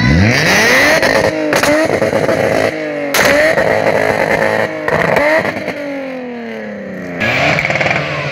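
Car engine revving hard as the car pulls away close by: the engine pitch climbs steeply, breaks off and climbs again several times over the first five seconds, then falls away. A fresh rise in revs comes near the end.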